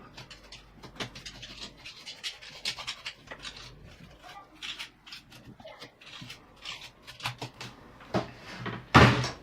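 Scattered light clicks and taps of Amiga 500 keyboard parts being handled during reassembly, with one louder thump near the end.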